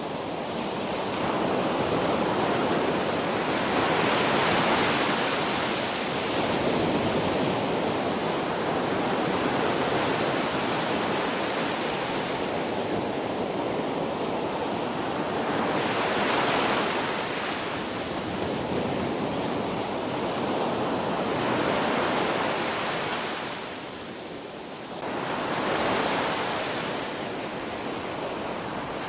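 Ocean waves breaking on a beach: a continuous wash of surf that swells as each wave crashes, about every five or six seconds, with a brief lull shortly before the last wave.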